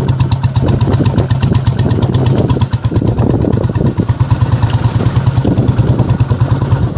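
Royal Enfield Bullet's single-cylinder engine running steadily, its exhaust beating in a fast, even rhythm of pulses.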